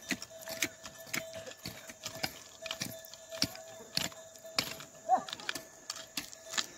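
Bulls drawing a plough through a field: irregular knocks and clicks, with a faint steady tone underneath and a short pitched call about five seconds in.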